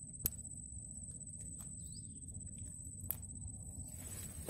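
A steady, high insect trill over a low outdoor rumble, with two sharp clicks, the louder about a quarter second in and another about three seconds in.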